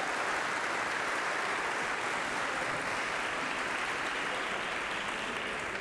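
A congregation applauding steadily, a dense patter of many hands clapping, in appreciation of the praise band; it begins to fade near the end.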